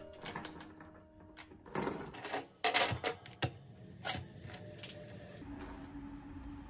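A brass wallet chain rattling and its clasp clicking as it is unhooked from a leather wallet, a cluster of sharp metallic clicks about two to three and a half seconds in. This is followed by softer handling as the wallet is set down on a wooden table.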